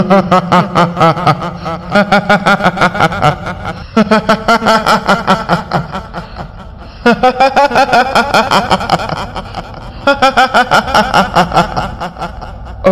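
A woman's high-pitched ghostly cackle, the kuntilanak's drawn-out "hihihi" laugh, comes in about five runs of quick pulses at roughly seven a second. The middle run is fainter.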